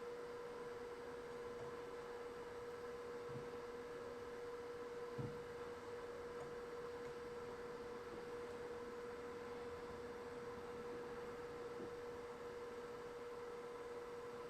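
A faint, steady electrical hum on one pitch, with a soft knock about five seconds in.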